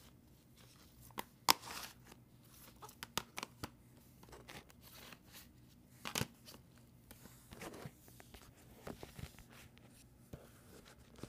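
Scattered light clicks, taps and rustles of objects being handled close to the microphone, with sharper knocks about a second and a half in and again about six seconds in.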